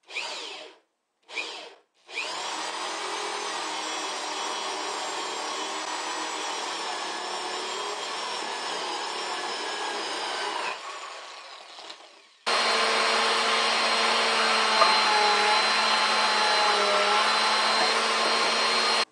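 Corded electric drill triggered in two short bursts, then run steadily boring a hole through a pine 2x2 board, winding down as the trigger is released. About twelve seconds in, a vacuum cleaner starts suddenly and runs steadily, louder than the drill, sucking up the wood chips.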